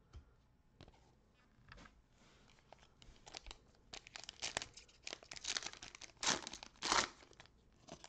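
Foil wrappers of Donruss trading card packs crinkling as they are handled, a few faint clicks at first, then dense crackling from about halfway through with the loudest crackles near the end.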